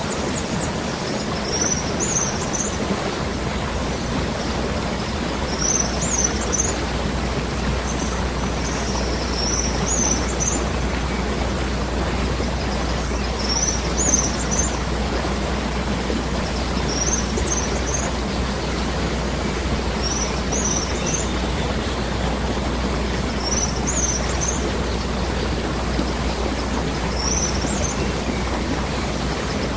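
Waterfall: water falling in a steady rush. A bird gives short high chirps about every two seconds.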